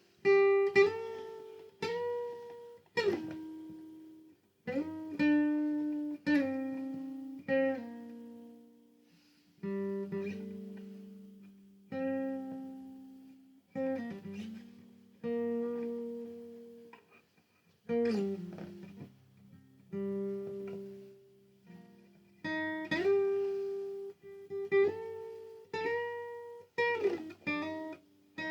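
Slow solo guitar: plucked notes and chords struck every second or two and left to ring and fade, several of them bent or slid in pitch.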